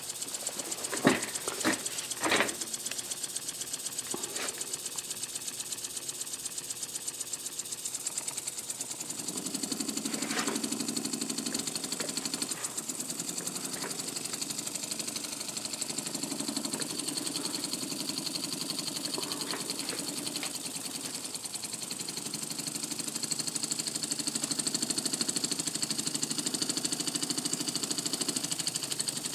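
Small homemade single-cylinder oscillating engine running on compressed air: a fast, even chuffing knock that gets a little stronger from about nine seconds in, with a few clicks near the start.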